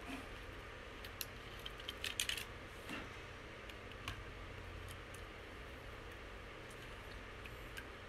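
Faint, scattered clicks and light taps of fingers handling a ribbon cable and small plastic parts inside an opened laptop, mostly in the first few seconds, over a low steady hum.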